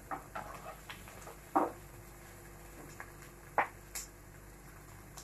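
Wooden spatula stirring onions in a metal pot: a few scattered light knocks and scrapes against the pot, the loudest about one and a half seconds in.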